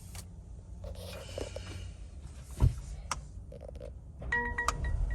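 Low steady rumble with a single sharp knock about halfway through. Near the end, a repeating pattern of short bell-like electronic tones starts.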